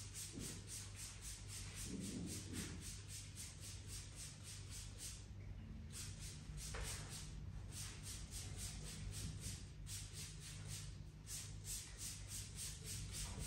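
A handheld spray bottle of fabric spray pumped again and again into the air, giving quick hissing spritzes at about four a second in several runs with short pauses between them.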